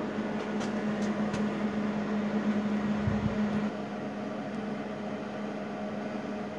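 A steady machine hum, which stops a little past halfway, with a few faint clicks near the start.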